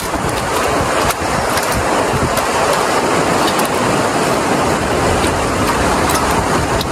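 Steady rushing of a mountain river over stones, with faint sharp knocks of a sickle blade splitting kindling about once a second.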